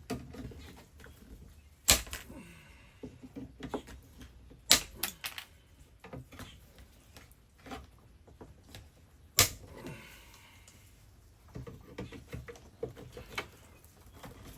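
Irregular clicks, taps and knocks of tools and parts being handled while an RV power converter is worked into its mounting space, with three sharp knocks about 2, 5 and 9½ seconds in and brief scraping twice.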